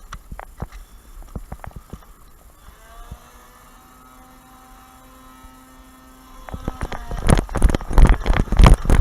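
Scattered light clicks, then a Nerf flywheel blaster's motors spin up with a rising whine and hum steadily for a few seconds. About six and a half seconds in, a rapid run of loud thumps and clatter begins.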